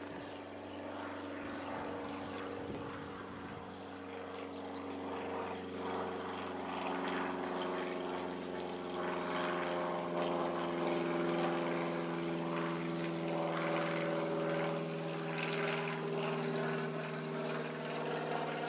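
Propeller-driven aircraft flying over: a steady engine drone with several held pitches, swelling louder from about four seconds in.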